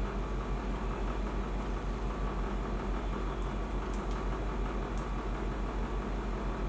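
Steady low hum with an even hiss of background noise, and a few faint clicks in the second half from the small camera being handled in the hands.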